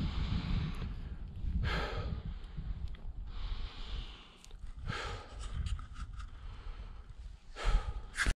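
A climber breathing hard through a face mask from exertion on steep ground, several loud breaths a second or few apart, over a low wind rumble on the microphone.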